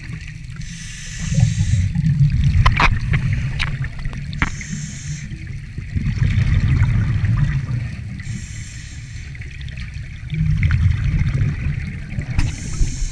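Scuba regulator exhaust bubbles heard underwater through a camera housing. A burst of bubbling hiss comes about every four seconds as a diver breathes out, over a low steady rumble, with a few sharp clicks.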